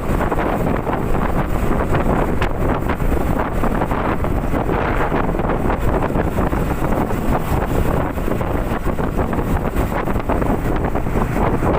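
Wind buffeting the microphone on a moving motorcycle, steady throughout, over the running engine of a Honda CB150R, a 150 cc single-cylinder.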